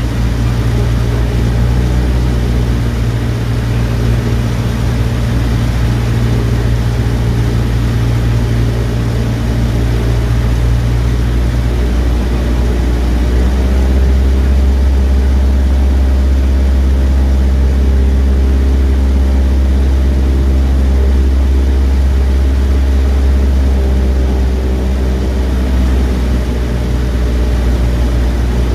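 Cessna 152's four-cylinder Lycoming piston engine and propeller droning steadily, heard inside the small cabin in flight. About twelve seconds in, the low note shifts lower and grows a little louder, a change in engine power.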